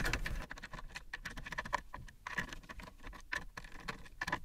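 Light, irregular clicks and scrapes of a hand screwdriver bit turning a small bolt through the metal carriage plate into a nut block, with fingers fiddling at the small parts.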